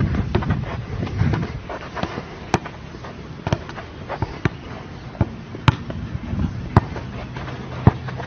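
Football being struck in sharp single touches, about one a second from a couple of seconds in, after a rumbling, muddled start.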